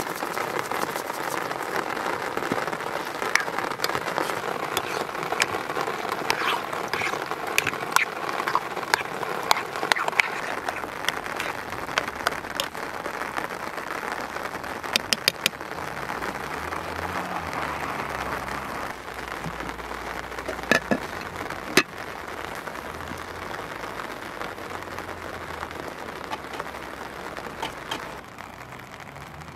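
Steady rain falling, with scattered sharp clicks of a spoon against a ceramic bowl as the yogurt is stirred.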